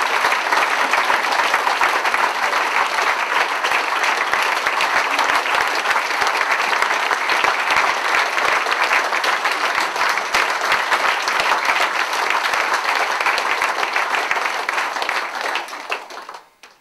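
Audience applauding, a dense sustained clapping of many hands that dies away near the end.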